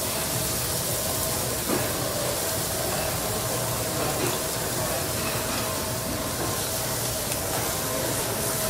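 Steady hissing sizzle of food cooking on a teppanyaki griddle, over a steady hum, with one sharp click about two seconds in.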